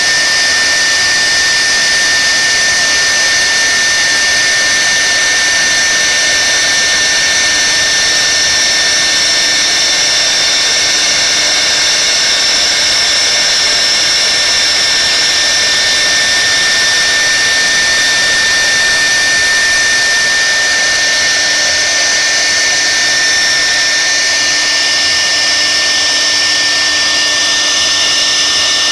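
CNC router spindle running at speed while its bit engraves particleboard: a steady high-pitched whine over a constant cutting hiss.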